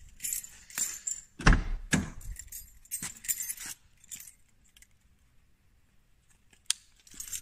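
Car keys jangling as they are handled, with knocks and one heavy thump about a second and a half in. A single sharp click comes near the end.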